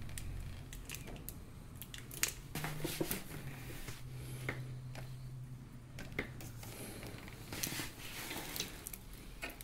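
Scattered light clicks and rubbing from a spinning reel and surf rod being handled.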